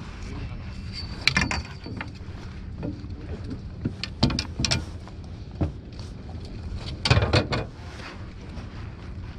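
A fishing boat's engine runs with a steady low hum under a series of sharp knocks and clatters as a landing net with a fish is swung over the rail and dropped onto the deck. The loudest knocks come in a cluster shortly before the end.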